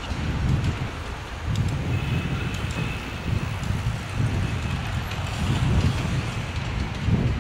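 Road traffic on a city street: a steady low rumble of passing vehicles, with a faint high whine for about a second and a half, starting about two seconds in.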